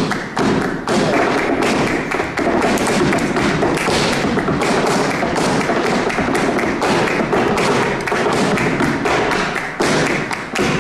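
Flamenco footwork (zapateado) on the stage floor together with palmas, rhythmic flamenco hand clapping: a fast, unbroken run of sharp strikes, several a second.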